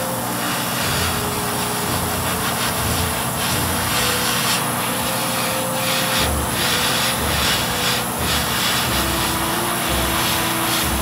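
Continuous rubbing noise, with several stronger strokes around the middle.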